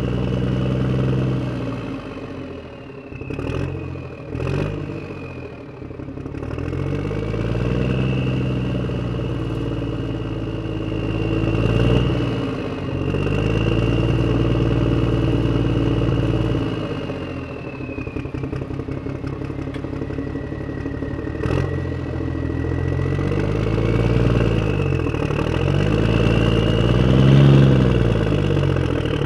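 Tractor-like engine running with a steady low drone and a high whine that rises and falls. It dips briefly a few seconds in, with a couple of sharp clicks, and there is another click around twenty-two seconds.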